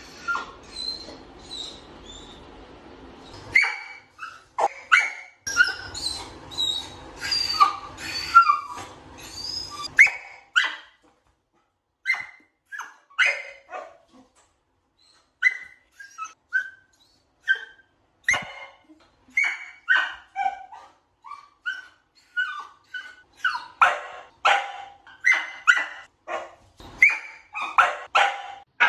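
A dog whining and yipping in short rising and falling cries, then from about ten seconds in barking in separate short barks that come faster toward the end.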